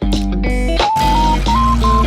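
Background music: an electric-guitar-led tune, its melody moving in short steps over a steady bass line.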